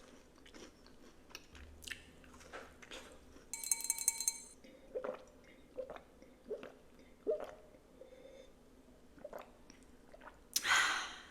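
A person chewing a soft cookie close to the microphone, with wet mouth clicks every second or so. There is a brief crackly rustle about three and a half seconds in, and a louder rush of noise near the end.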